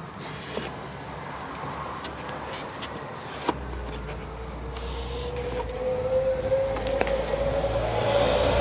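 A motor vehicle's whine rising slowly in pitch and getting louder, over a low rumble, with a few faint clicks.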